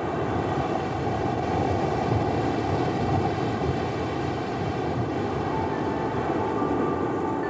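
A steady rushing noise at an even level. About five and a half seconds in, a few faint, steady chime-like music tones enter.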